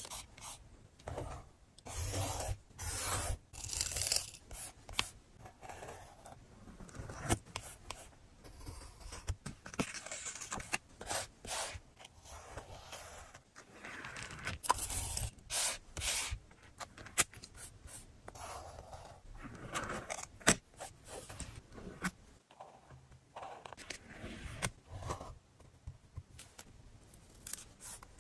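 Paper and sticker handling on a journal page: stickers peeling off their backing and fingers rubbing them flat, heard as irregular scratchy rustles and small taps.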